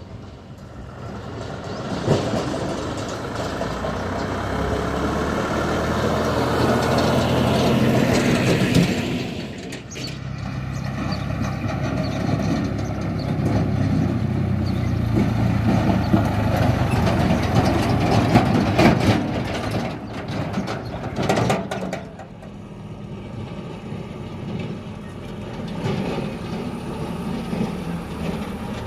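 Diesel engine of a JCB 3DX backhoe loader working a load of mud, revving up and dropping back in long swells as the hydraulics dig and lift. A few sharp knocks come about two-thirds of the way through, then the engine settles to a lower, steadier run.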